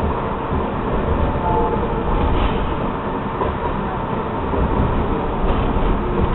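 R62A subway train running steadily along the track, heard from inside the lead car: a continuous rumble of wheels and running gear.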